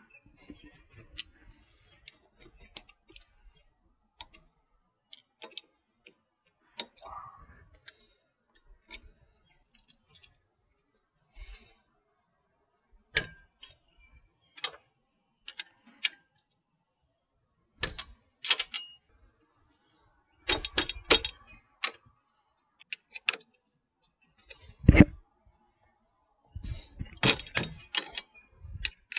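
Hand tools clicking and clinking on the metal of an ATV's rear wheel hub as pliers work a cotter pin out of the axle nut. Scattered single clicks at first, busier clusters of sharper metal clinks in the second half.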